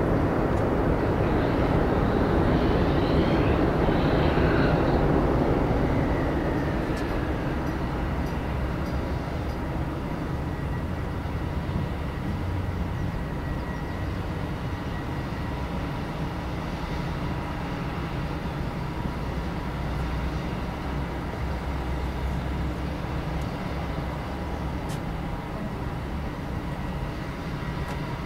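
Boeing 747-400 freighter's four GE CF6 turbofan engines during the landing rollout: a loud, even rush of engine noise that dies down about six seconds in. The engines then idle with a steady whine over a low rumble as the jet slows and taxis.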